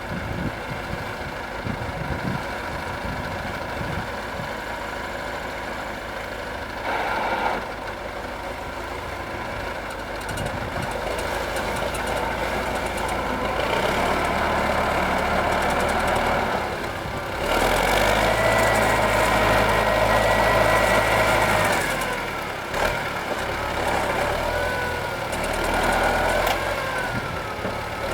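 Air-cooled four-cylinder D-144 diesel of a T-40AM tractor running, its revs rising in steps about halfway through. From about two-thirds in, a high steady whine sounds over the engine, then wavers near the end.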